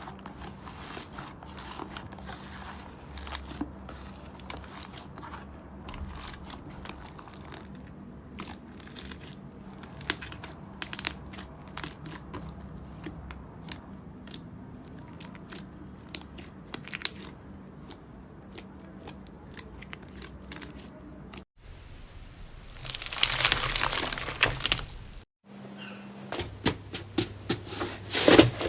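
Slime being squeezed, pressed and stretched by hand, giving a steady run of small crackles, pops and clicks. The sound cuts off abruptly twice, about three-quarters of the way through, with a louder, denser stretch of crackling between the cuts, and sharper clicks come near the end.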